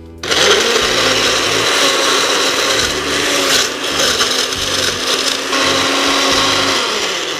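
Countertop blender running, blending mango, milk and ice cubes into a drink. The motor starts about a quarter second in, runs steadily with a grinding noise over its hum, and shuts off just before the end.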